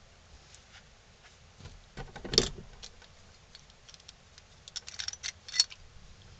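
Small one-handed bar clamps being picked up and handled: a clatter about two seconds in, then a run of light clicks and rattles near the end as a clamp is worked.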